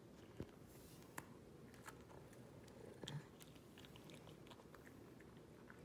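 Faint, scattered crunches and clicks of a Pekingese chewing a hard dog treat.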